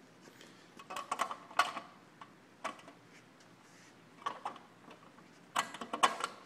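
Haworth Enhanced two-way connector cover trim being clipped onto a cubicle panel connector: several short clicks and knocks in small clusters, the loudest near the end.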